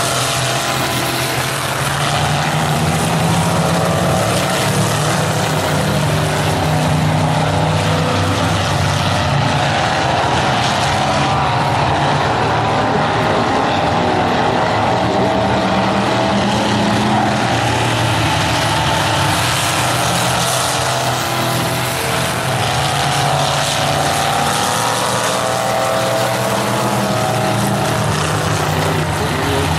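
Several stock cars racing around a short paved oval, their engines running hard, with the pitch of several engines rising and falling together as the cars go through the turns and along the straights.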